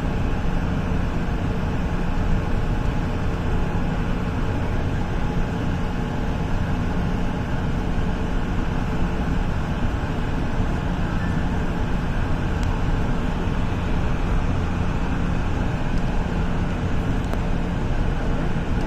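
Light rail train running, a steady rumble with a low, even hum.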